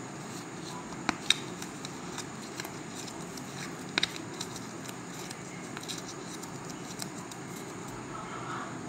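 Paper being folded and creased by hand: a few sharp crackles, loudest about a second in and again about four seconds in, over a steady background hiss.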